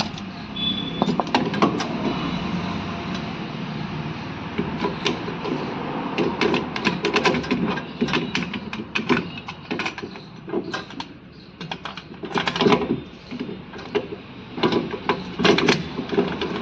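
Irregular metal clicks, clinks and knocks as a new rear wheel hub is fitted onto a car's rear axle, with the clatter busiest in the second half.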